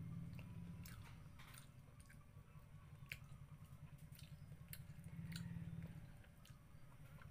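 Close-up mouth sounds of a person chewing fish and rice: wet clicks and lip smacks a few times a second. Under them runs a low hum that swells near the start and again about five seconds in.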